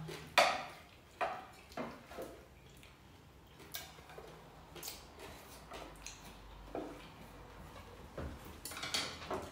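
Chopsticks clicking and tapping against plates and bowls while people eat: scattered light clicks, the sharpest about half a second in.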